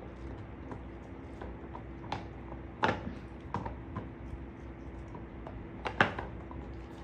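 A dog gnawing on a hard chew treat: scattered sharp crunching clicks at an uneven pace, the loudest about three seconds in and about six seconds in.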